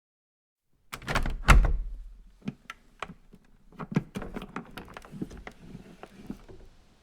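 An object vibrating against a wooden table top, making an irregular run of knocks and rattles. It starts about a second in, is loudest shortly after, and thins out over the next few seconds.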